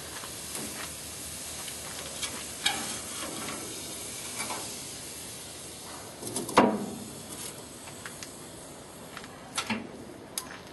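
Soaked mesquite wood chips hissing and sizzling on a tray of hot charcoal, broken by metal clanks as tongs push the coal tray into the smoker's firebox; the loudest clank comes a little past halfway, with another near the end.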